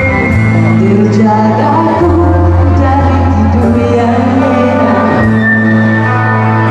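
Live band playing a pop-rock song, with a singer's voice carrying the melody over sustained bass notes.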